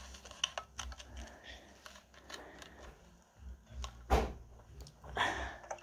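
Furry ASMR video playing through a handheld console's speaker: scattered soft clicks and taps close to the microphone, with two short hissy swells about four and five seconds in.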